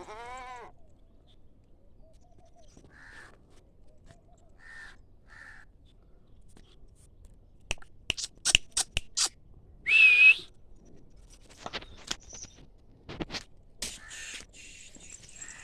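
A goat bleats once, a short wavering call, at the start. Scattered sharp clicks and knocks follow, and about ten seconds in there is a brief, loud, high whistle-like call.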